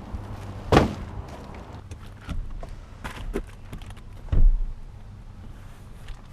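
A few knocks and thuds over a low steady hum; the loudest come about a second in and again past the middle, the second one deep and heavy.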